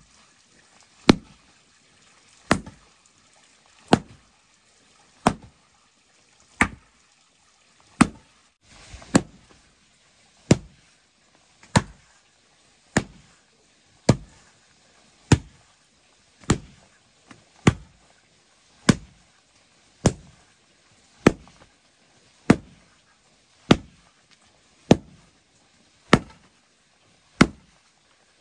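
A hand-held wooden pole rammed down again and again onto loose soil to tamp it firm: a regular thud about every second and a quarter.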